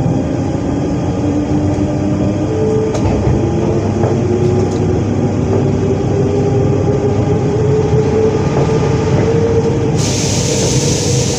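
Z 20821, a Z 20500-series (Z2N) double-deck electric multiple unit, accelerating: its traction equipment whines in several tones that climb steadily in pitch over the running rumble. A hiss joins in near the end.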